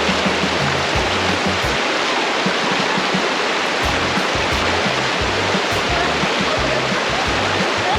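Rushing mountain stream water, with background music laid over it whose bass line drops out for a couple of seconds in the middle.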